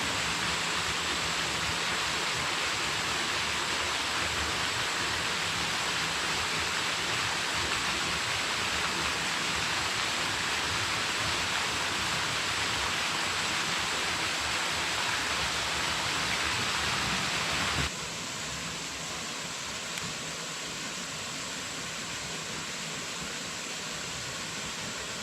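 Steady rushing hiss of water, with no distinct events; it drops noticeably in level about eighteen seconds in.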